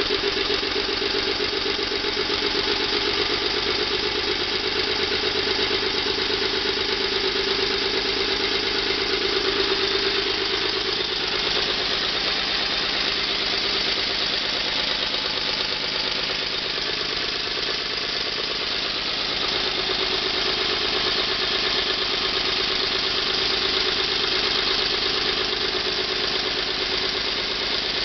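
Small steam engine running steadily at a fast, even beat, with escaping steam hissing around it.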